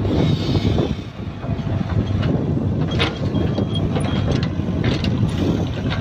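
Sumitomo compact excavator's diesel engine running steadily as the boom and bucket dig into soil, with a few short clanks and scrapes about three and five seconds in.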